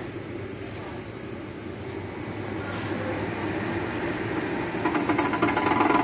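Ceiling-suspended air conditioner switched on and starting up: a steady running noise grows louder. About five seconds in, a louder rapid rattle with a steady tone sets in. This is the unit's abnormal noise, whose cause is being sought.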